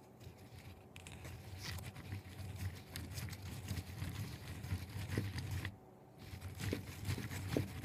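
Hand-spun 3D-printed plastic roller bearing, unlubricated, turning: a low rumble with light clicking from the rollers. It drops away for a moment after about five and a half seconds, then picks up again.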